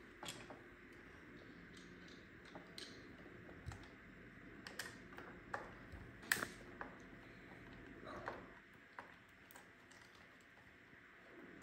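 Faint, scattered clicks and taps of a small screwdriver working screws on the plastic chassis of an iRobot Roomba 960 robot vacuum, with the sharpest click about six seconds in.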